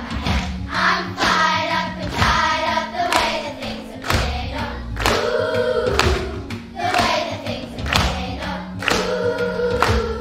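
Children's choir singing in unison over accompanying music with a steady beat.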